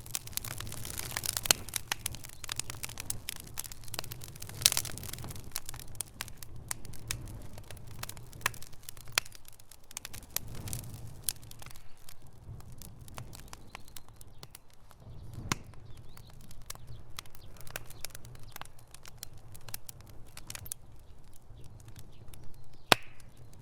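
Wood fire burning in a fireplace: a steady low rumble of flames under constant crackling and sharp pops. The loudest snap comes near the end.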